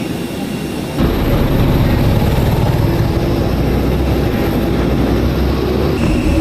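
Loud, steady aircraft engine noise, jumping louder and deeper about a second in.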